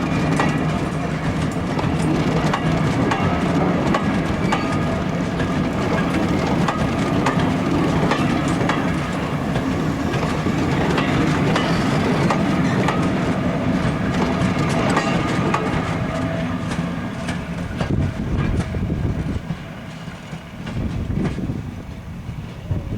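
Train running past, its wheels clattering over the rail joints, with a steady mechanical hum; the sound drops away about nineteen seconds in.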